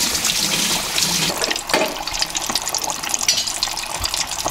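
A breaded chicken wing deep-frying in hot oil at about 170 °C, freshly lowered in: a steady sizzle with rapid, dense crackling as the moisture in the coating boils off.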